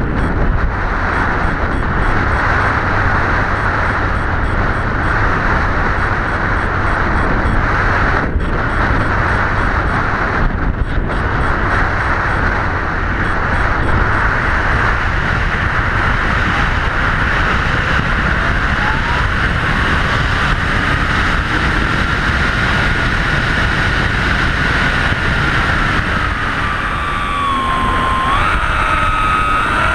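Steady rushing wind noise from a Blitz RC Super Skysurfer model plane in flight. About two-thirds of the way in, a thin motor whine rises slowly in pitch, holds, then drops and wavers near the end.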